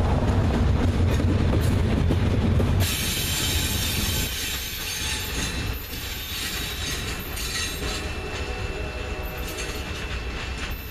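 Norfolk Southern double-stack intermodal train: the wheels and cars give a loud, deep rumble as they pass close on the rails. About three seconds in, this cuts abruptly to a quieter, more distant train sound with faint wheel squeal.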